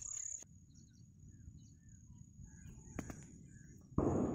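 Crickets trilling in a steady high-pitched drone, with faint scattered chirps over a low rustle. A single click comes about three seconds in, and a sudden loud burst of noise near the end fades away.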